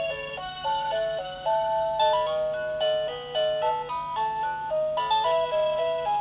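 Quartz cuckoo clock's built-in electronic melody playing on the hour: a simple tune of clear single notes, changing several times a second, over a faint steady hum.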